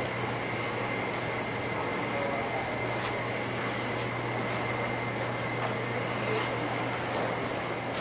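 Steady indoor background noise: a constant hiss with a low hum and a faint high steady tone, with no clear events.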